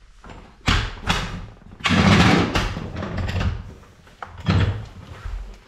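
Pneumatic impact wrench loosening wheel bolts in short bursts: three bursts, the second the longest and loudest.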